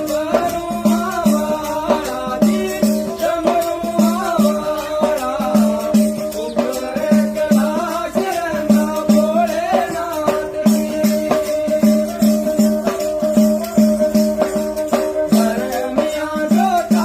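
Hindi devotional song to Shiva, a bhajan, playing with a steady repeating drum beat, sharp percussion strokes and a wavering melody over a held drone.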